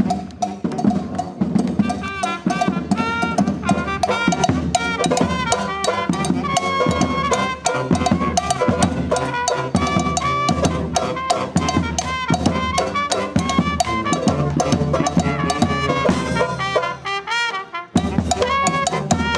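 Brass street band playing live: trumpets and other brass carry the melody over drums and percussion. The low drums drop out briefly near the end, then the full band comes back in.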